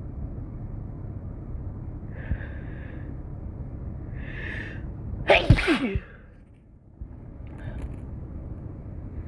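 A person sneezes once, loudly and suddenly, about five seconds in, after two breathy intakes of breath as the sneeze builds.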